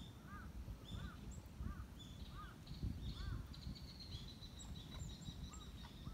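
Wild birds calling: a series of about five short arched calls, one every two-thirds of a second or so, that stops about halfway through, with higher chirps and a brief trill, over a steady low rumble of background noise.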